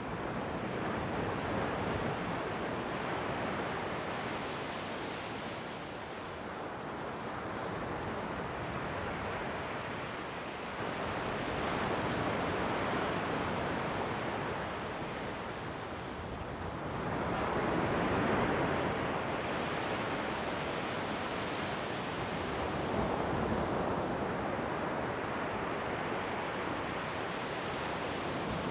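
Ocean waves breaking and washing up the shore, the surf swelling and easing in slow surges every several seconds.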